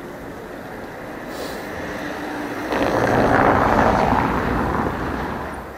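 A vehicle passing by: a rushing noise that swells, is loudest a little past the middle, and fades away near the end.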